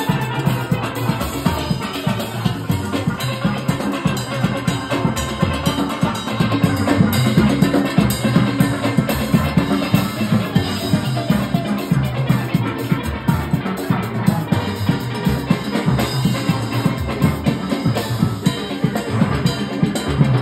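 A steel orchestra playing live: many steel pans struck with rubber-tipped mallets, backed by a drum kit keeping a steady beat.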